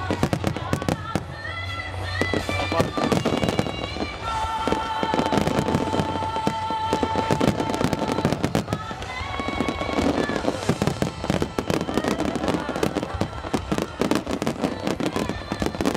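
Fireworks finale barrage: a dense, rapid run of shell bursts and crackling, over music with held notes.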